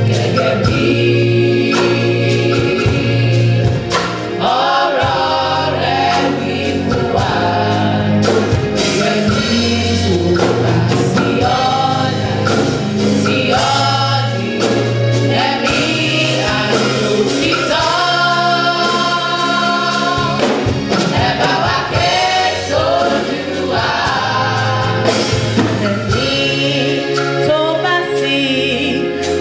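Gospel choir of young women singing in harmony into microphones, over a band accompaniment with a steady bass line and drum beats.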